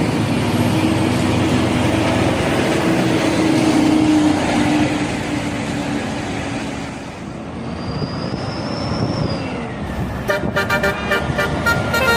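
Indonesian bus telolet horn, the multi-tone musical air horn, sounding over the noise of road traffic; near the end it plays a quick run of short choppy notes.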